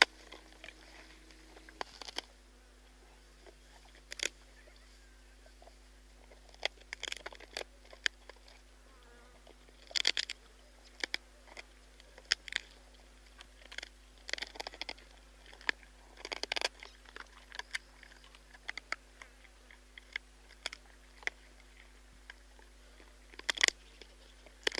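Spotted hyaena crunching and chewing buffalo bones: irregular sharp cracks and crunches, some coming in quick clusters.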